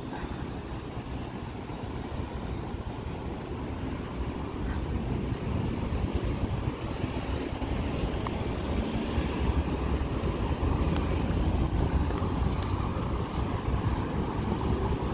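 Steady rush of fast highway traffic passing close by, growing gradually louder, with wind rumbling on the microphone.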